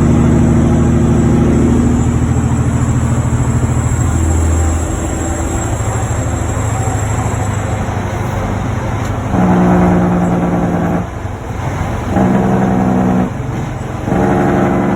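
Semi-truck diesel engines, a Cummins ISX and a Caterpillar C15, running loudly on the highway with a steady low drone, then three loud horn blasts of a steady chord in the second half, each about a second long.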